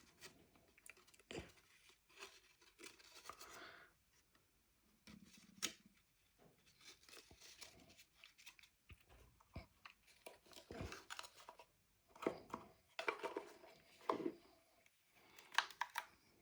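Faint handling noises of a coin's packaging being opened: scattered clicks and rustles, busier in the last few seconds.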